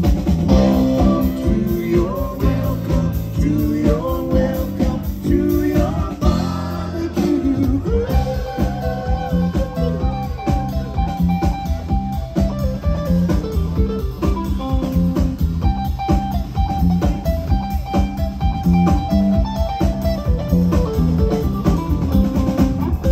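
Live band playing an instrumental passage: guitar over a steady drum beat and low bass notes, with bending guitar notes around the middle.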